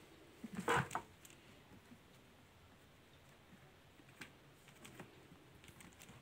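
A kitten's claws and paws scratching and clicking on cardboard and hard plastic, with cloth rustling. A short burst of scraping and rustling comes just before a second in, then a few sparse light clicks.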